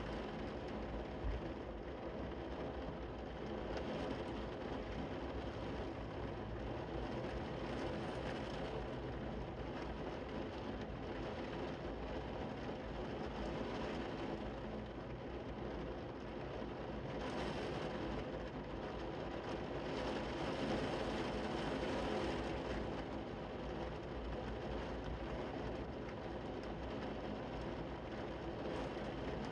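Heavy rain falling steadily, a continuous even hiss that swells a little about two-thirds of the way through.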